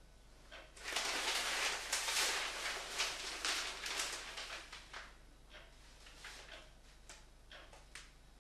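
Newspaper pages rustling and crackling as a broadsheet is turned and refolded, loud for about three seconds starting just under a second in, then a few lighter crackles as the pages settle.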